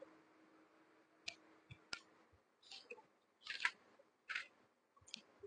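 Near silence broken by a handful of faint rustles and light taps, clothing and body movement picked up by a clip-on lapel microphone.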